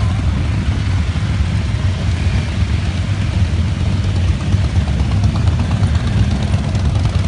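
Several motorcycle engines running at low speed as a line of bikes rides slowly past, a steady deep rumble.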